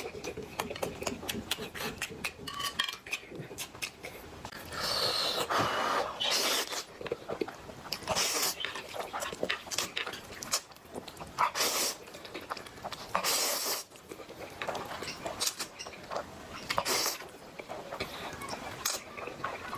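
A person eating close to the microphone: wet chewing and lip-smacking clicks, broken by several short hissing bursts of slurping and breath.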